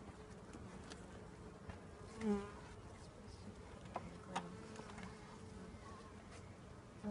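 Honeybees buzzing around an open hive: a steady hum that swells louder briefly about two seconds in. Two sharp clicks come about four seconds in.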